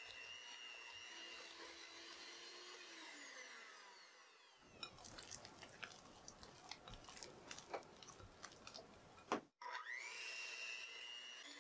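Electric hand mixer beating thick chocolate buttercream in a glass bowl, its whine falling away after about three seconds. Then a silicone spatula scrapes and folds the frosting against the glass with irregular clicks. After a sudden cut near the end, the mixer starts up again with a rising whine.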